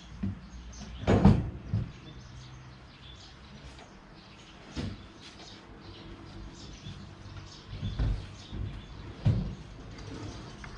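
A few dull thumps and knocks of heavy speaker cabinets being handled and set in place, the loudest about a second in, with others spread out near the middle and end.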